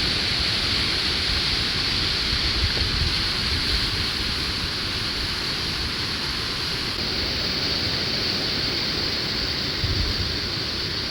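Grade 3–4 whitewater rapids rushing steadily, an even, unbroken wash of water noise.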